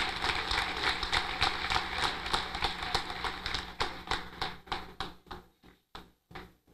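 Audience applauding: dense clapping that thins out about four seconds in to a few scattered claps as it dies down.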